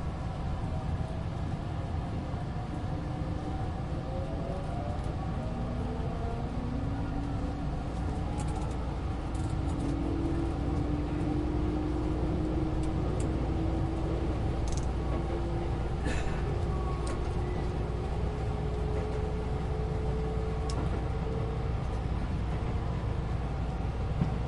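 Inside a Keisei electric train running on the line: a steady low rumble of wheels and car body, with the motors' whine climbing slowly in pitch as the train gathers speed. There are a few faint clicks.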